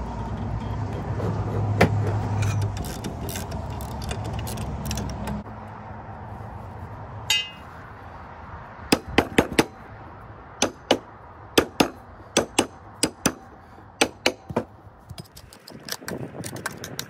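Hand tools working on an upturned lawnmower: a steady low hum for the first five seconds or so, then, in the second half, a string of sharp metal clicks and scrapes, one or two a second, as caked grass is scraped off the underside of the mower deck.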